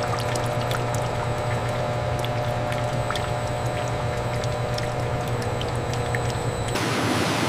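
Decanter centrifuge running: a steady low machine hum with several steady higher tones and faint scattered ticks. Shortly before the end it gives way to a hissing rush.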